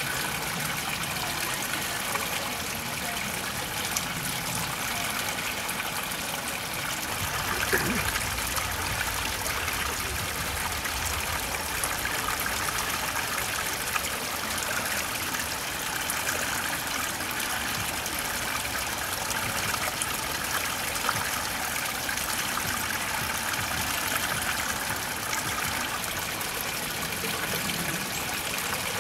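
Water trickling steadily over rocks in a small stream, with a few brief splashes, including a bird bathing about 14 seconds in.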